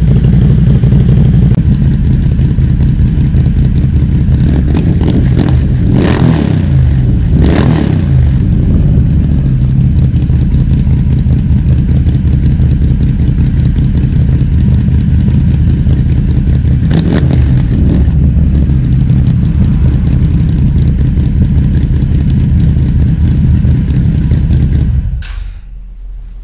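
Can-Am Renegade XMR 1000R's V-twin running loud through a new RJWC dual slip-on exhaust, idling with two quick throttle blips about six and seven and a half seconds in and another about seventeen seconds in. The engine is shut off near the end.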